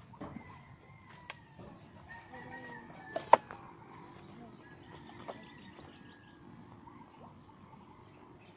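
A rooster crowing, with a sharp knock a little over three seconds in.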